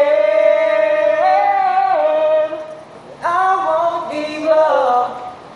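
Wordless a cappella singing: a man's voice holding long, high notes that step up and back down in pitch, in two phrases with a short break a little before halfway.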